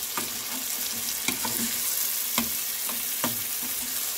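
Chopped onion, green pepper and tomato sizzling in oil in a non-stick frying pan, stirred with a spoon that scrapes and clicks against the pan several times.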